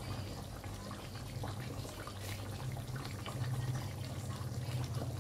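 Curry gravy with chicken wings simmering in a wok on a gas burner, with small scattered bubbling pops over a steady low hum.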